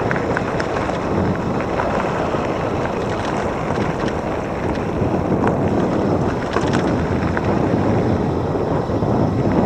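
Steady rush of wind buffeting the microphone of an electric bike riding along a trail, with scattered small clicks and ticks.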